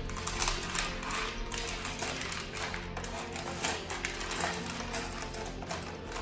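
Dry dog kibble rattling and clicking against a metal pan as a hand stirs it, a steady run of many small clicks. Background music plays under it.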